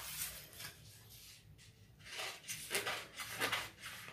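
A sheet of pattern paper rustling as it is shifted, then large scissors cutting through the paper in several snips from about two seconds in.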